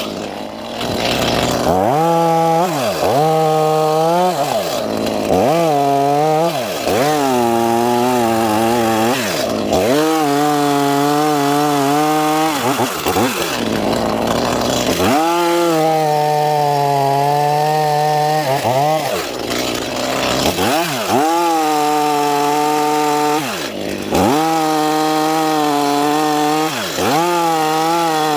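Stihl chainsaw running and cutting wood, its engine speed repeatedly dropping and climbing back as the throttle eases off and the chain takes the load again.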